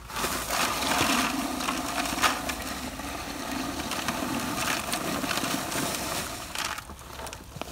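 Dry high-strength concrete mix pouring out of a paper bag into a plastic bucket holding mixing water: a steady rush of falling grit that eases off near the end.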